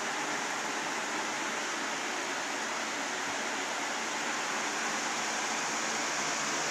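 A fan running: a steady, even rushing noise with no change in pitch.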